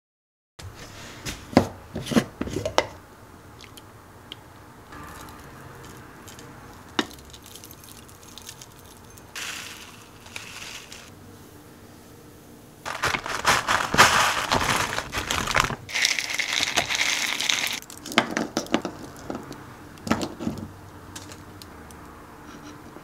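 Food preparation sounds: dry ingredients such as oats, hemp seeds and chia seeds poured from a metal measuring scoop into a wooden bowl, with light knocks of the scoop. A loud stretch of plastic packaging crinkling comes a little past the middle.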